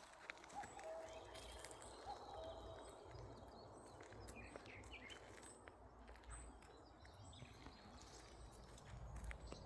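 Quiet outdoor ambience with a bird calling a short note several times over the first couple of seconds, each note rising briefly and then held. A few higher chirps come midway, over a faint low rumble.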